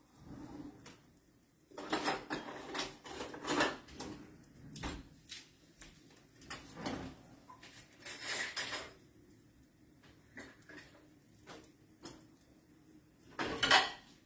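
Scattered knocks and clatter of kitchen things being handled, such as drawers, dishes and utensils, coming in short bunches with gaps between, the loudest bunch near the end.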